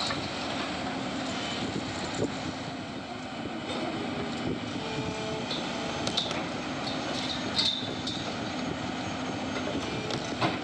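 Tracked excavator's diesel engine running steadily under load while its arm works against a concrete wall, with a few sharp clanks of metal and concrete scattered through, the loudest near the middle and near the end.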